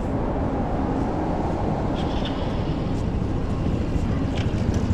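Street traffic ambience: a steady low rumble of road vehicles passing, with a few faint clicks.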